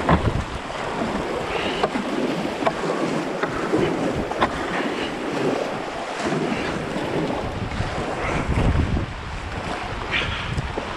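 Fast river water rushing and splashing around a canoe running small rapids, with wind buffeting the microphone. A few sharp knocks stand out here and there.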